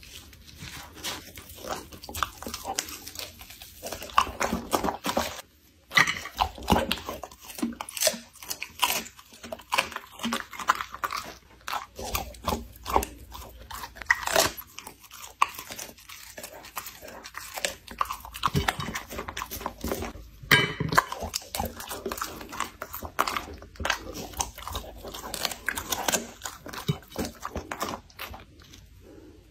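Golden retriever crunching and chewing food from a plate, picked up close by a small microphone beside the plate: a run of irregular crisp crunches and bites, broken by a short pause about five and a half seconds in.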